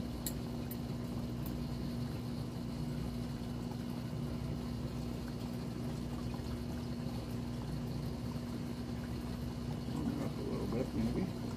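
Aquarium pump and wavemaker running with a steady hum and the rush of moving water. A short, louder uneven sound comes near the end.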